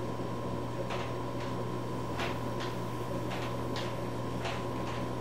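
Plastic toy katana swishing through the air as it is spun, about ten short whooshes falling in pairs roughly once a second, over a steady electrical hum.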